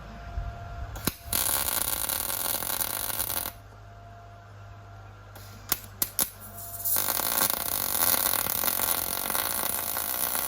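ESAB Rebel wire-feed (MIG) welder arc crackling in two welds, one of about two seconds and then a longer one of about four seconds, each starting and stopping sharply. A few sharp clicks fall between them over the welder's steady hum.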